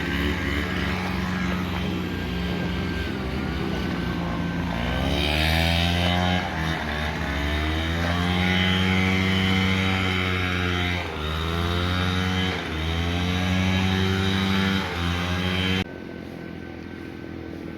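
Motorcycle engine running while riding, its pitch rising and falling with the throttle and dipping several times as it slows. The engine sound stops abruptly near the end, leaving a quieter steady background.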